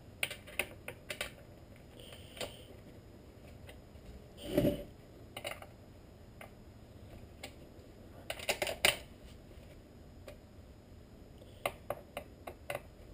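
Light clicks and small knocks of hands working on a Husqvarna 455 Rancher chainsaw's bar, chain and side cover. There is one duller knock about four and a half seconds in, and quick runs of sharper clicks past the middle and near the end.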